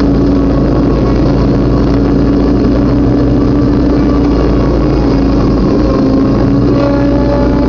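Riding lawn mower's engine running steadily at a constant speed while mowing grass.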